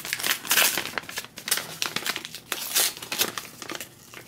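Paper envelope crinkling and rustling as it is opened and its contents are pulled out by hand, in a string of short crackly strokes that thin out near the end.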